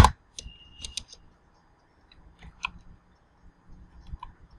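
Computer keyboard keys being pressed: one sharp click at the very start, then a few faint, scattered clicks.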